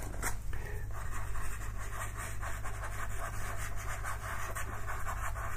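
Soft pastel stick rubbed and stroked across textured pastel paper, a steady fine scratchy rubbing.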